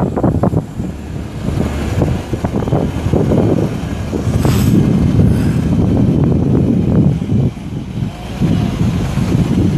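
International DT466 inline-six turbo diesel of a tandem-axle dump truck running as the truck drives a loop across a dirt lot, a continuous low rumble that rises and falls unevenly.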